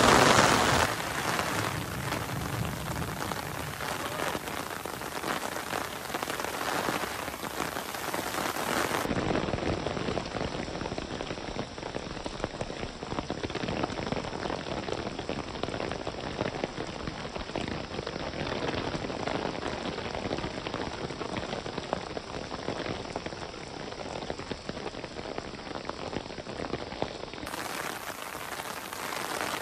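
Rain falling on stone paving, a steady hiss, loudest in the first second or so.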